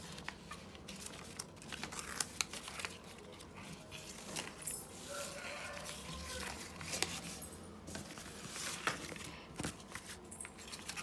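Craft paper rustling and crinkling as sheets and pasted paper flaps are handled and pressed open, with scattered light taps.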